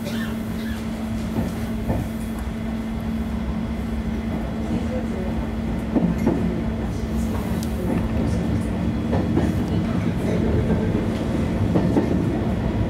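JR Kyushu YC1 series hybrid diesel-electric railcar picking up speed out of a station, heard from inside the cab area. There is a steady hum over the running rumble, with sharp clicks of the wheels over rail joints, and it grows louder from about halfway through.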